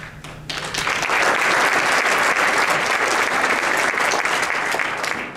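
Audience applauding, starting suddenly about half a second in and dying away near the end.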